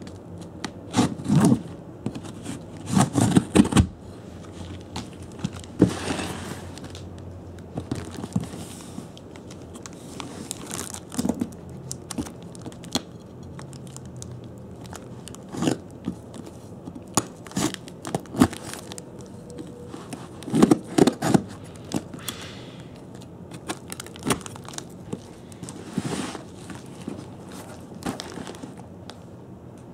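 A knife that is not very sharp cuts and saws through packing tape on a cardboard box. The tape tears and crackles, and the cardboard scrapes and crunches in irregular bursts with sharp clicks. The loudest bursts come about a second in, around three seconds in, and about two-thirds of the way through.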